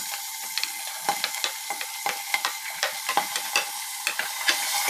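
Chopped vegetables sizzling in hot oil in a pressure cooker pot, with a steel spoon repeatedly clicking and scraping against the pot as they are tipped in and stirred.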